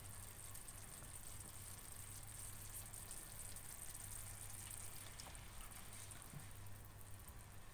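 Faint steady sizzle of a cream sauce heating in a non-stick frying pan, with a few soft ticks as a plastic spatula stirs it in the second half, over a low steady hum.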